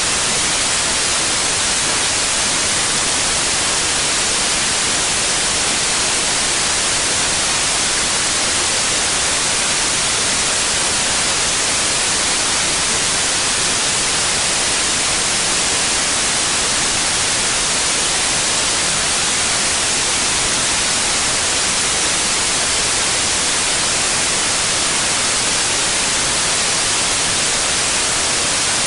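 Steady white noise: an even, unchanging hiss, strongest in the treble.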